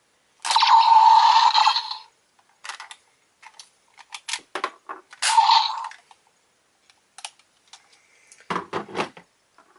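Power Rangers Dino Charge Morpher toy playing two loud electronic sound effects from its small speaker, a long one about half a second in and a shorter one about five seconds in. Scattered plastic clicks come from the toy being handled.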